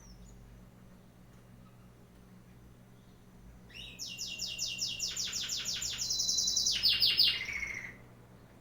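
A bird singing a fast run of evenly repeated high notes, about six a second, for some four seconds, the notes stepping lower in pitch twice near the end.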